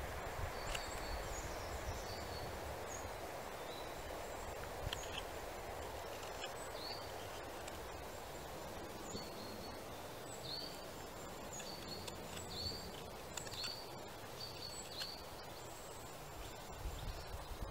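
Small birds chirping over and over, short high notes that often fall in pitch, over a steady outdoor background hiss. Now and then a faint scrape or click of a hook knife paring green wood.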